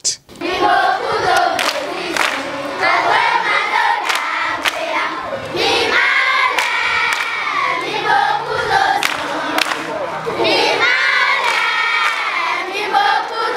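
A crowd singing and chanting together, many voices at once, with a few sharp hits scattered through it.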